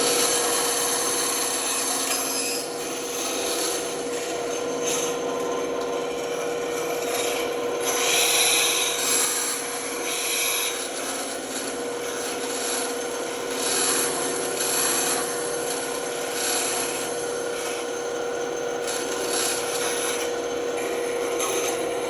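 Band saw running with a steady hum, its blade rasping through wood in several stretches of cutting.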